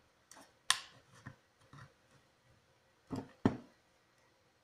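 Plastic stud finder housing being pried apart with a flat-blade screwdriver: sharp plastic clicks and snaps, the two loudest about three seconds in as the case gives way.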